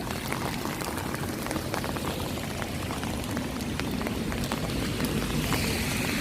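Heavy rain falling, with many sharp drop impacts over a steady hiss. A brighter hiss swells near the end.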